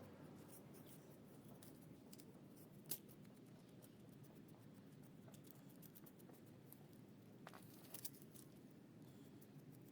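Near silence with faint light clicks and scratches, a few sharp ticks about 3 seconds in and again near 8 seconds: a paint brush working dry debris out of a typewriter's mechanism.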